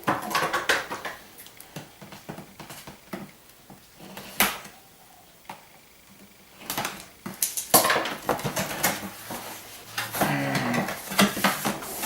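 Packaging being pulled out of the box and handled: rustling, scraping and light clatter, with one sharp knock about four seconds in, a quieter spell after it, then busier rustling in the last few seconds.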